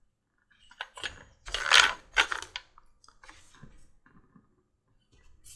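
Leatherworking tools handled on a workbench: a few short metallic clicks and clinks, the loudest around two seconds in, then faint scattered ticks.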